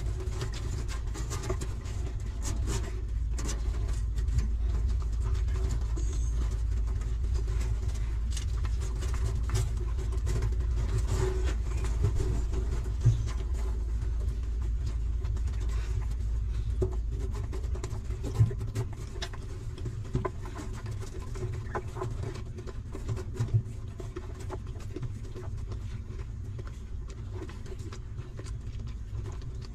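Newborn puppies suckling at their mother, making many small smacking clicks, with a few louder knocks, over a steady low rumble.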